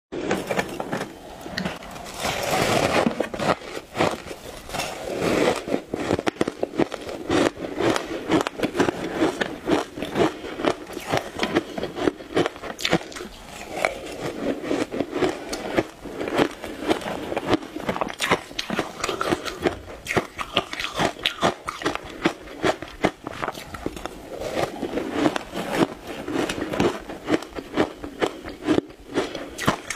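Ice dusted with matcha powder being bitten and chewed close to lapel microphones: a dense, continuous stream of crunching crackles.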